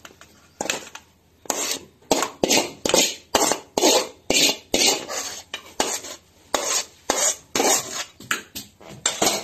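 Steel ladle scraping crumbled scrambled egg out of a metal kadai into a steel bowl: quick metal-on-metal scrapes, about three a second.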